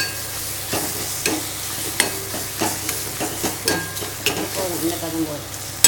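A spoon stirring grated mango thokku in a metal kadai on the stove, scraping and knocking against the pan at an uneven pace, roughly once or twice a second, over a soft sizzle of the cooking mixture.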